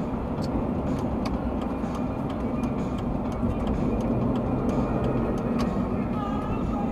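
Steady road and engine noise heard inside a car's cabin while it drives at about 65 km/h, with light irregular ticks scattered through it.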